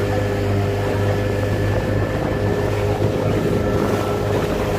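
Motorboat engine running steadily, a constant hum over an even rush of noise.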